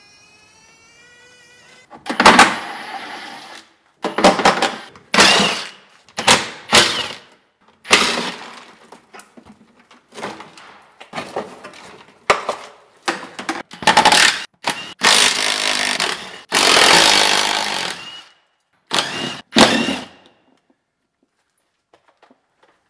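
A handheld power tool run in about a dozen short, loud bursts that start abruptly, as fasteners on the car's underside are worked loose. The bursts stop a few seconds before the end.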